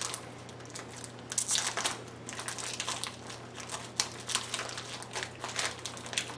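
Plastic wrapper of a small biscuit packet crinkling and crackling irregularly as hands twist and pull at it to tear it open.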